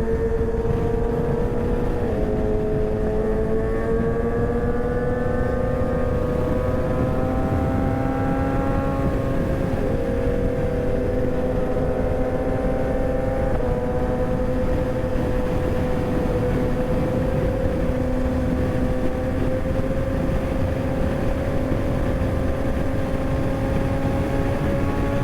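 Kawasaki ZX-6R inline-four engine running steadily at high revs, its pitch drifting slowly upward with a few brief dips, over heavy wind rush on the microphone.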